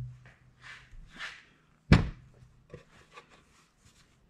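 A wooden box being handled on a workbench: faint scrapes and rustles, with one sharp knock about two seconds in.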